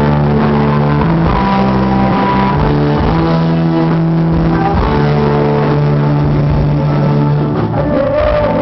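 A live rock band playing loudly, with electric guitar and bass holding long sustained notes over a steady bass line.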